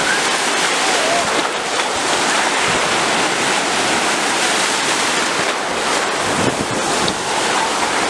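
Sea surf breaking and washing up in the shallows, a steady loud rush of churning water.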